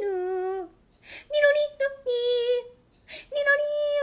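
A high voice singing a simple melody of held notes, in short phrases with brief pauses between them.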